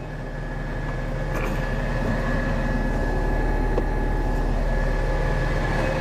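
Utility truck engine running steadily, with a low hum and a thin whine on top, growing louder over the first two seconds and then holding.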